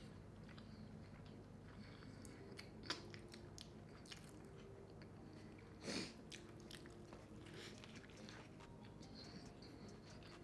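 Faint, close-up chewing of a burger: soft wet mouth sounds and small clicks, with a sharp click about three seconds in and a brief louder noise near six seconds.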